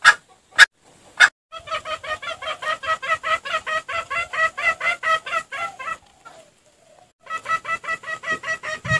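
Junglefowl clucking: three loud, sharp calls about half a second apart, then a fast, even run of clucks for about four seconds, a short pause, and another run starting about seven seconds in.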